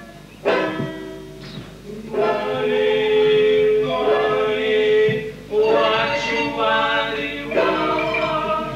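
Several voices singing long held notes together in four phrases, each one starting abruptly, with no drums.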